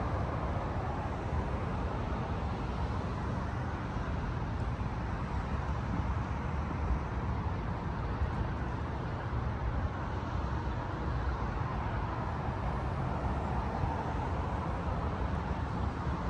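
Steady city traffic noise from the surrounding roads: a continuous low rumble with no distinct passing vehicles.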